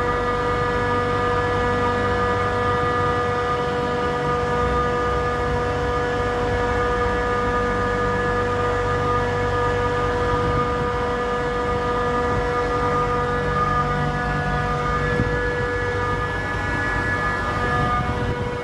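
Trane air-cooled chiller running, its compressors and condenser fans giving a steady whine of several pitches over a low rumble.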